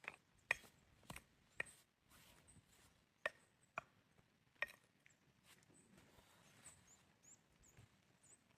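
A series of sharp knocks, about seven in the first five seconds at uneven half-second to one-second gaps, then only faint background hiss.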